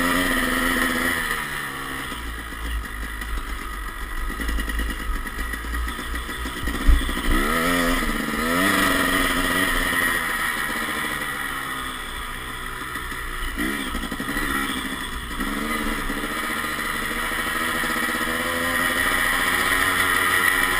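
Dirt bike engine running under load, its pitch rising and falling over and over as the throttle is opened and closed. One sharp knock about seven seconds in.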